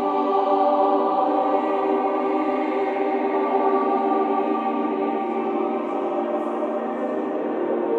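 Choir singing Renaissance sacred polyphony in held chords: a near-anechoic recording convolved with the impulse response of the Basilica di San Lorenzo, so the voices are smeared by the church's reverberation.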